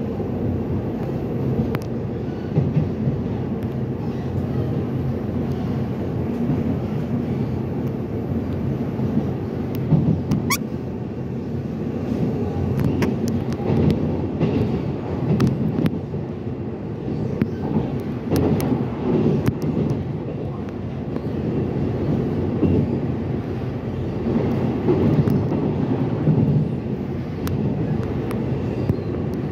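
Inside an EMU800 electric multiple unit running at speed: a steady low rumble of wheels on rail and the carriage body, with scattered clicks and rattles and a brief rising squeak about ten seconds in.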